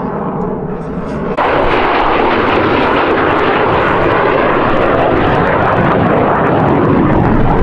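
F-16 Fighting Falcon's jet engine roaring overhead in flight, stepping up abruptly to a louder roar about a second and a half in and holding there.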